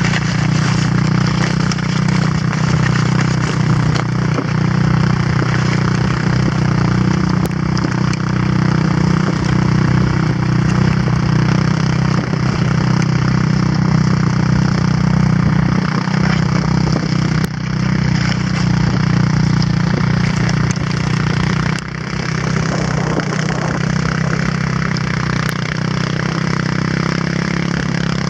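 Quad (ATV) engine running steadily as it tows sleds, with a steady rushing hiss of sled runners sliding over snow.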